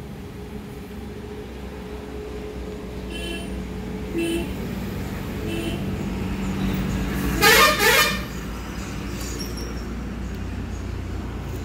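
Steady vehicle engine hum with two loud, short horn toots about seven and a half seconds in.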